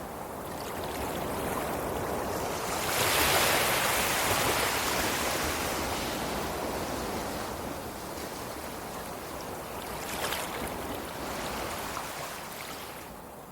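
Ocean waves: surf breaks about three seconds in and washes out gradually, then a smaller wave breaks near the ten-second mark.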